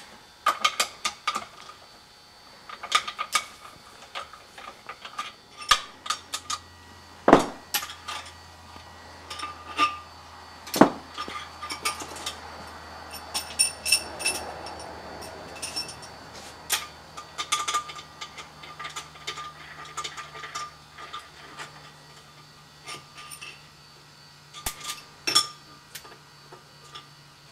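Irregular metallic clinks and clicks of a socket wrench and extension on the engine's cylinder-head bolts as they are loosened and taken out, with a faint low hum underneath.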